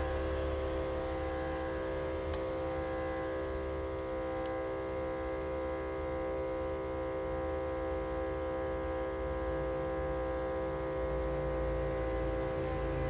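Vacuum pump of a cheap LCD separator running with a steady, even hum, with a couple of faint ticks. The vacuum is only just holding the screen down.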